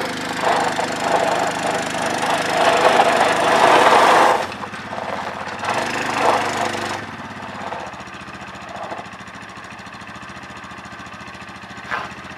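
ATV engine revving hard under load while pushing a heavy boat trailer backward, with a noisy crackle of tyres on gravel. It eases off after about four seconds, revs again briefly, then settles to a steady idle after about seven seconds, with one short knock near the end. The engine is short of power for the boat.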